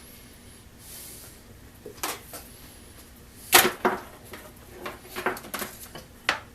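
Hand tools working on electrical zip cord: a series of sharp clicks and snips, the loudest pair about three and a half seconds in and a quick cluster a little later.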